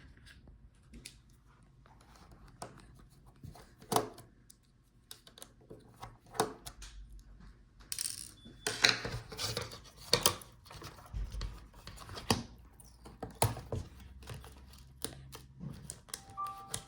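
Scattered light clicks, taps and scrapes of a small screwdriver and tiny screws on a laptop's plastic palmrest as the touchpad screws are taken out, busier about halfway through.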